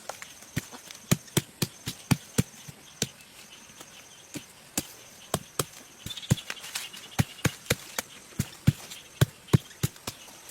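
Repeated sharp knocks of a tool striking timber, irregular, about two or three a second with short pauses. Insects shrill steadily behind them.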